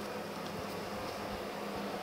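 Steady low hum with a faint even hiss: shop room tone with background machinery running.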